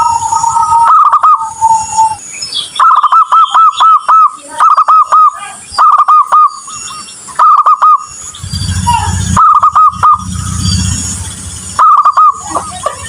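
Zebra dove (perkutut) cooing: short bursts of quick, looping coo notes, several to a burst, repeated every second or two, with a longer held coo near the start.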